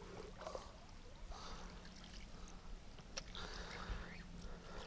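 Faint water sloshing and trickling at the side of the boat, in soft swishes every second or so, over a low steady hum.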